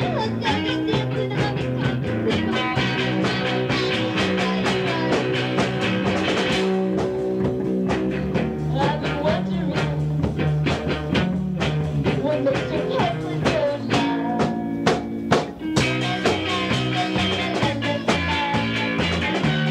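Rock band rehearsing a song: electric guitars, bass guitar and drums playing together, with regular drum hits through the music.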